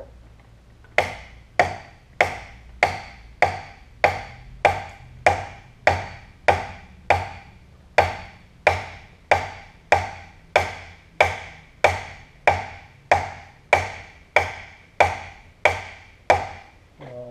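Steady series of hammer blows, about one and a half a second, starting about a second in: sharp metallic knocks with a short ring, each swing of an orange hammer pounding a stuck part in the head of a Canedy & Otto drill press to drive it further.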